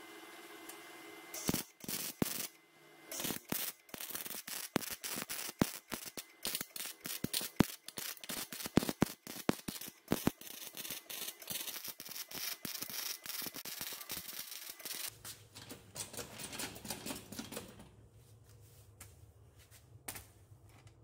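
Rapid, irregular clicking and clattering of hand tools and metal parts being worked. About three-quarters of the way in it gives way to a low steady hum with only a few quieter clicks.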